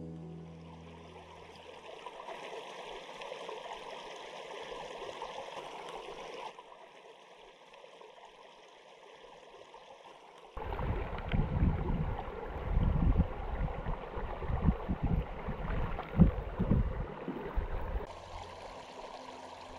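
Small creek running, a steady trickling rush of water that drops off for a few seconds. From about halfway in, loud irregular low rumbles and thumps come in over the water sound and stop near the end.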